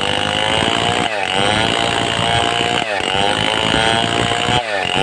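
Stihl 070 two-stroke chainsaw running hard while sawing a mahogany log. Its engine pitch dips briefly and recovers about every two seconds.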